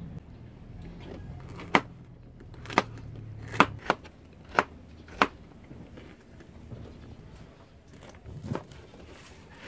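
Kitchen knife chopping bitter gourd and yardlong beans on a plastic cutting board: about seven sharp knocks, most of them a second or less apart in the first half, with one more near the end.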